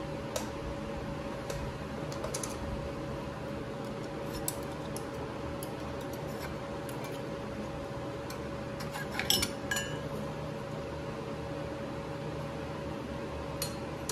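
Harley-Davidson Shovelhead clutch plates, the metal steels and friction discs, clinking and clacking as they are slid off the clutch hub studs and handled. The clicks are scattered, with the loudest cluster about two-thirds of the way in, over a steady background hum.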